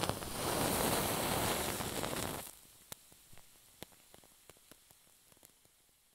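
A torch wick catching from a lighter: a loud rush of hissing flame for about two and a half seconds, dropping suddenly to faint scattered crackles as the wick burns.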